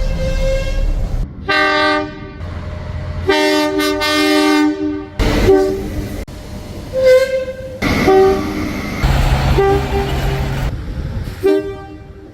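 Train horns sounding in a series of blasts, some short and one nearly two seconds long, each a chord of steady tones. Rumbling train running noise fills the gaps between blasts.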